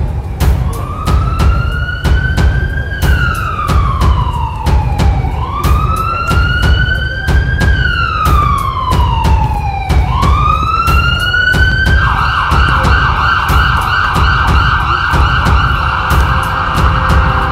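Emergency-vehicle siren sounding a slow rising-and-falling wail, switching about twelve seconds in to a fast yelp. Underneath it runs a low, pulsing background track.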